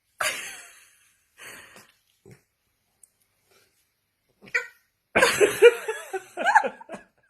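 A dog's sounds: a few short breathy snuffs at first, a single brief yelp past the middle, then a two-second run of rapid, wavering vocal calls near the end.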